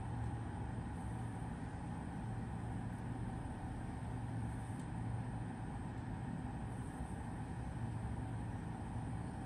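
Steady low hum over faint background noise, with no music playing yet.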